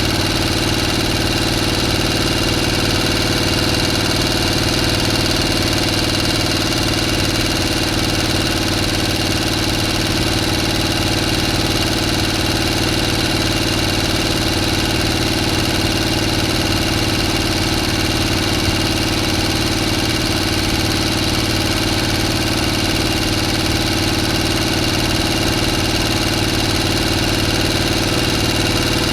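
A motor running steadily at a constant speed: an even low hum with a thin steady high whine over it, unchanging throughout.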